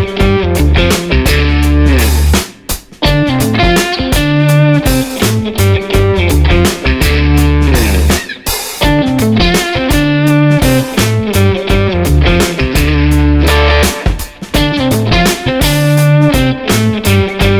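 Background music: a rock track with electric guitar and drum kit.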